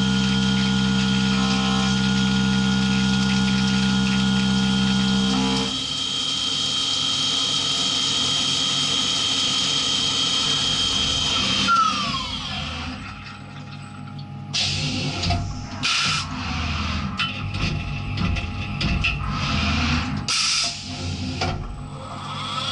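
CNC machining centre's spindle running with a facing cutter under flood coolant, a steady machine tone that changes about six seconds in. Near halfway the spindle winds down with a falling whine. A run of clunks and short air blasts follows as the tool is changed, and near the end a rising whine as the spindle spins up again.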